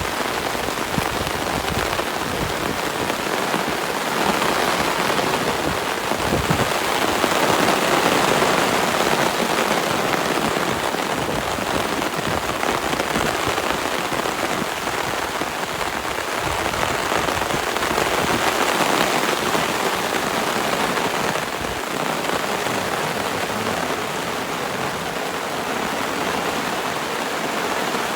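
Heavy rain falling in a steady downpour, an even hiss that swells a little a few times.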